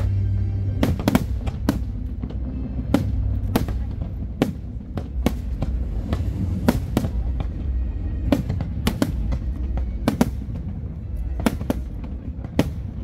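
Aerial firework shells bursting in a string of sharp bangs, irregularly spaced, about one or two a second, over a steady low rumble.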